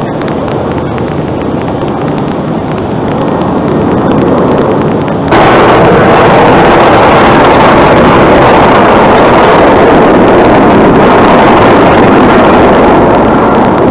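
Loud, even rushing roar of jet aircraft and highway traffic noise with a low rumble. It grows over the first few seconds, then jumps suddenly louder and holds steady.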